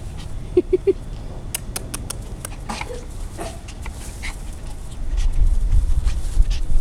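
Small white puppy making a quick run of three short whines about a second in, then a few fainter ones, as it scampers about on grass. A low rumbling on the microphone from about five seconds in.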